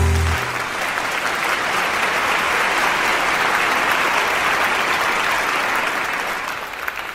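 The band's last low note rings out briefly, then a live audience applauds steadily, the clapping thinning out near the end.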